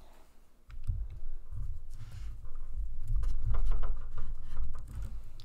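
Handling noise: low rumbling with soft knocks and rustles as a person moves right up against the microphone, loudest about three and a half seconds in.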